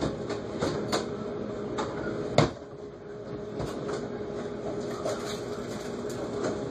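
Kitchen drawer opened and things handled: a few light knocks and clicks, with one sharp bang about two and a half seconds in, over a steady appliance hum.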